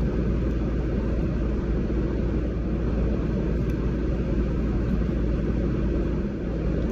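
Steady low rumble and hiss inside a parked car's cabin, typical of the car idling with its fans running.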